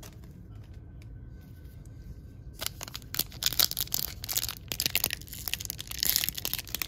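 A foil trading-card pack wrapper being torn open and crinkled by hand, with dense crackling that starts about two and a half seconds in, after a quiet start.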